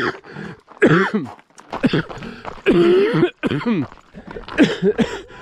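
A man coughing and clearing his throat in a run of about six short bursts.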